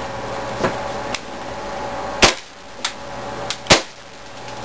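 Maruzen Walther P99 gas blowback airsoft pistol being fired through a chronograph: two loud, sharp shots about a second and a half apart. Several lighter clicks come before and between them.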